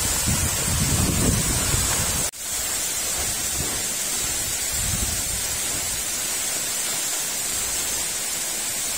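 Steady rush of a tall waterfall pouring into its pool, with wind buffeting the microphone for the first two seconds. It cuts out for an instant about two seconds in, then carries on evenly.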